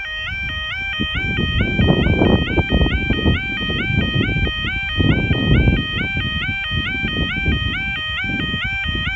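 Level crossing audible warning alarm sounding its two-tone yodel, switching between a low and a high note about three times a second, the warning that the crossing is closing for an approaching train. A loud, fluctuating low rumble runs underneath.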